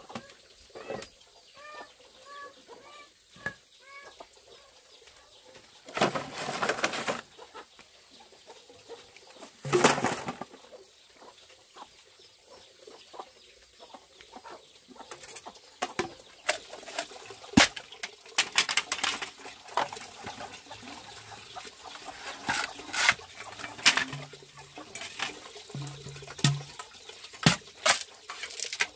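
Machete work on bamboo: sharp knocks and cracks as bamboo is cut and split into strips, growing more frequent from about halfway through, with two louder clatters around six and ten seconds in. A hen clucks a few times in the first few seconds.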